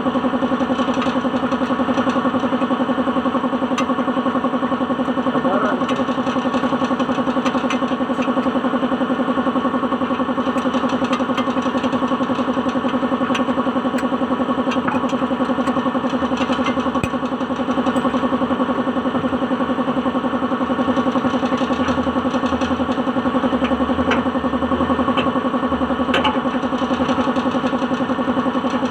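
Suzuki DA16 engine running steadily at an even speed.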